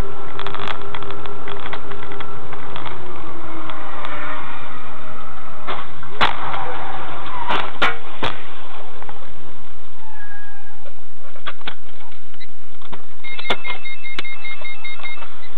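Car interior road and engine noise recorded by a dashcam while driving on a highway, with several sharp bangs about six to eight seconds in as a car ahead crashes against the roadside barrier.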